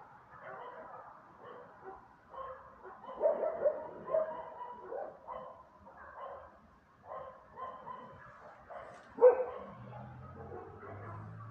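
Several dogs barking off and on, with a quick run of louder barks about three seconds in and one sharp, loud bark about nine seconds in. A low steady hum comes in near the end.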